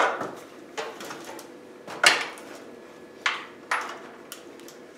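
Tools and objects being handled and set down on the top of a stepladder: about half a dozen sharp knocks and clinks, the loudest at the very start and about two seconds in.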